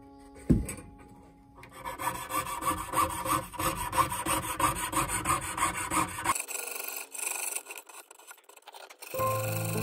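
Jeweller's piercing saw cutting through brass sheet: the fine blade rasps in quick even strokes of about three a second, fading thinner in the second half. A single sharp thump about half a second in.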